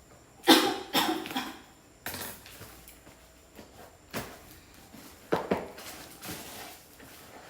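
Packaging and its contents being handled and opened: a string of sudden rustles and knocks, the loudest about half a second and a second in.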